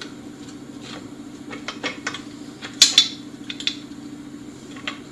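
Metal clinks and knocks from the disc sander's tilting table being set to an angle and blocked up, with two sharp clacks close together about three seconds in. A steady low hum runs underneath.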